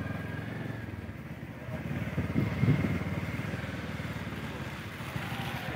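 Motorcycle engine running steadily while being ridden, its firing pulses heard throughout, with a brief louder swell a little over two seconds in.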